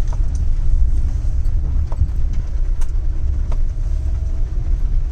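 Steady low rumble of a car driving, heard from inside the cabin, with a few scattered light ticks.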